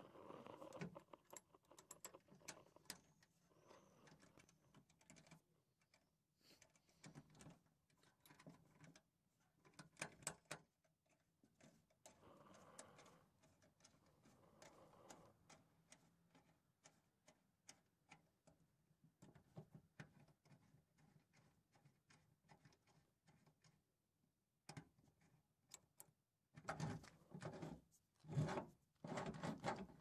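Faint small metallic clicks, scrapes and rubs of a key going into and turning in a homemade cylindrical padlock on a steel garage-door hasp, with a few louder knocks and rustles near the end.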